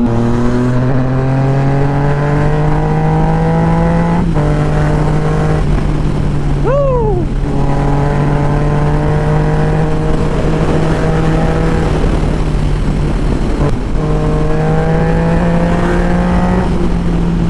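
Yamaha MT-09's 847 cc inline-three engine, fitted with a replica slip-on exhaust, pulling under way. Its pitch climbs slowly in each gear, with gear changes about four and fourteen seconds in. A short rising-and-falling whistle-like glide sounds about seven seconds in.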